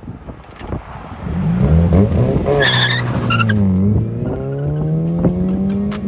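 Mazda MX-5 Mk3's 2.0-litre four-cylinder engine heard through a muffler-delete exhaust (smaller centre resonator, rest stock), accelerating hard away. The revs climb from about a second in, ease back near the middle and climb again toward the end, with a brief high squeal about two and a half seconds in.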